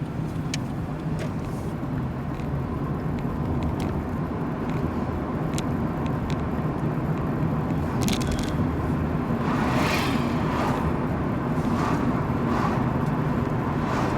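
Car engine and tyre noise heard from inside the cabin while driving, a steady low hum that grows slightly louder, with a few light clicks and a brief rush of noise about ten seconds in.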